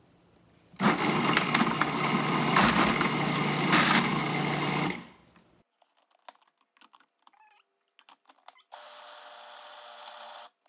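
Food processor motor running for about four seconds, its blade churning chickpeas, garlic, tahini, lemon juice and olive oil into a paste, then switched off suddenly.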